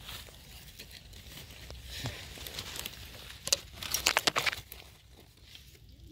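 Rustling and crackling of leaf litter and soil as termite mushrooms are dug up and picked by hand, with a quick run of sharp snaps and crackles about three and a half seconds in.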